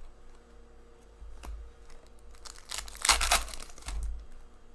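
Trading cards handled and slid against one another: a few light taps, then a papery rustling swish about three seconds in, the loudest part.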